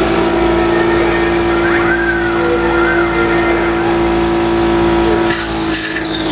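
Electric motor of a home respiratory-therapy machine running with a steady hum. About five seconds in, the hum drops slightly in pitch and a high hiss joins it.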